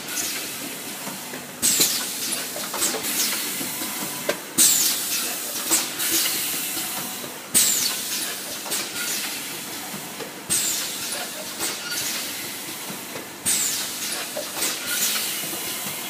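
Pneumatic cup filling and sealing machine cycling: a sudden burst of compressed-air hiss about every three seconds, fading between bursts, with light mechanical clicks.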